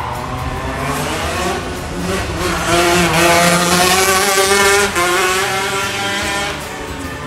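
Manual-gearbox racing kart's engine revving hard as the kart speeds past, rising in pitch and loudest about three to five seconds in, then falling away.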